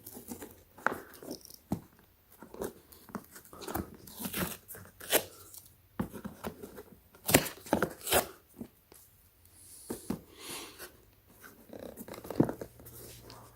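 Plastic packaging being worked open by hand, crinkling and tearing in irregular bursts of sharp crackles and clicks.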